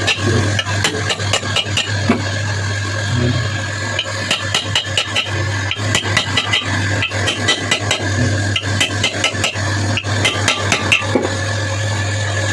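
Electric motor humming steadily, with many quick metallic clicks and scrapes in irregular clusters over it.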